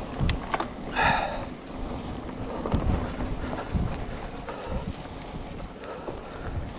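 Wind rushing over the microphone of a mountain bike riding fast down a dirt singletrack, with the tyres rolling on dirt and low thumps and sharp rattles as the bike jolts over bumps. A short, high-pitched sound cuts through briefly about a second in.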